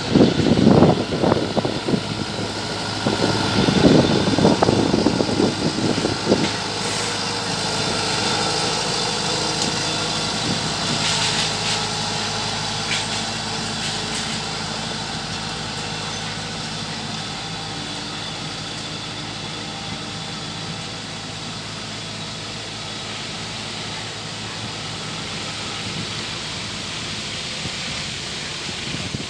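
Kubota tracked combine harvester's diesel engine running: loud and rough for the first six seconds or so, then a steady, even run.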